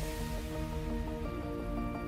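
Background music with sustained pitched notes and a steady low bass, starting abruptly just before.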